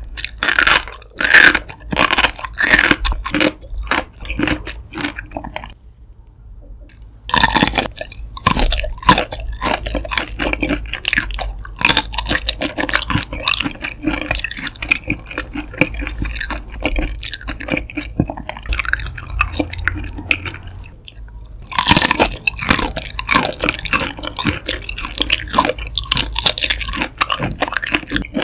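Close-miked chewing of shrimp: a dense run of sharp crackles and wet mouth sounds, pausing briefly about six seconds in and again just before twenty-two seconds.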